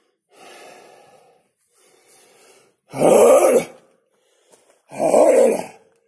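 A man's exertion sounds: two soft, breathy exhalations, then two loud strained vocal grunts about two seconds apart, in time with his squatting exercise.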